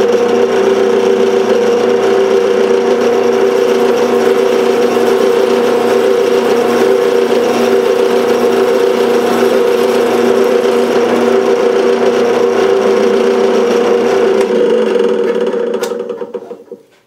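Drill press motor running steadily while a Forstner bit bores a hole into a small wooden perch boss; the machine sound dies away near the end.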